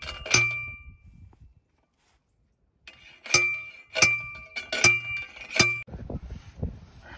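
A manual T-post driver slams down onto a steel T-post, driving it into the ground: ringing metallic clangs, one just after the start, then four more about two-thirds of a second apart after a short pause. Softer low thumps follow near the end.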